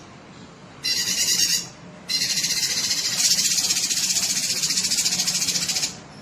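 Cucak kinoi singing: a short, rapid, raspy high-pitched trill about a second in, then a long rapid trill of about four seconds, with a faint low hum underneath.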